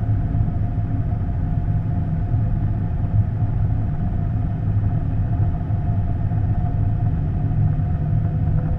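Boeing 787 Dreamliner's jet engines and cabin noise heard from inside the cabin while the airliner rolls slowly on the ground: a steady low rumble with a faint steady hum above it.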